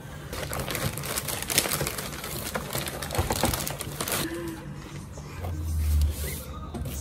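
Clear plastic packaging crinkling and rustling as a new keyboard and its manual are handled in their bags, with a brief low rumble about five and a half seconds in.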